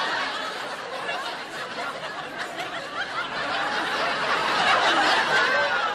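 Studio audience laughing and chuckling, dipping and then swelling again near the end.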